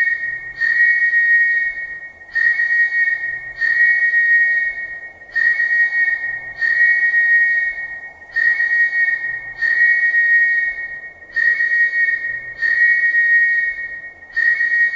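Police whistle blown in repeated pairs of shrill blasts, a short blast then a longer one, about every three seconds, each sounding two close notes at once.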